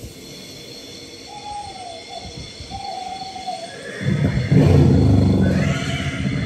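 A long, wavering hoot-like call over a quiet background. About four seconds in, loud show music with a heavy low rumble starts suddenly.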